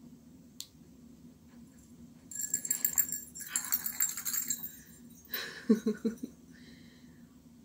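Small bells jingling inside a rubber dog-dummy toy as it is moved about, in bursts from about two to five seconds in. A short pitched sound follows about a second later.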